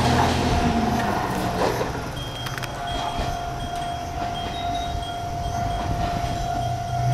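Kanto Railway KiHa 5000-series diesel railcar No. 5003 approaching along the track with its diesel engine running. A steady mid-pitched tone sounds from about three seconds in, with short high-pitched beeps repeating over it.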